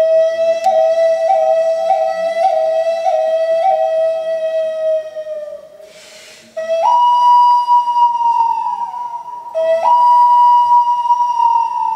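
Clay ocarina playing a slow melody: a quick wavering trill between two low notes, a brief pause about halfway, then two long higher notes, each sliding down in pitch as it fades.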